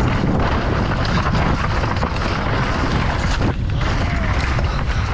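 Mountain bike descending fast down a steep dirt and gravel line: tyres rolling and sliding over loose dirt, mixed with strong wind rush on the microphone. The rushing noise briefly thins about three and a half seconds in.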